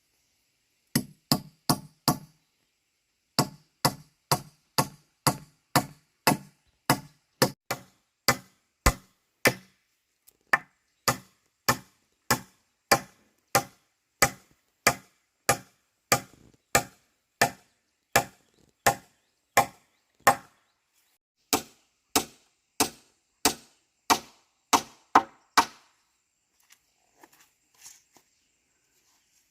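Repeated chopping strikes at a steady rhythm of about two a second, with a short pause near the start. The chopping stops a few seconds before the end.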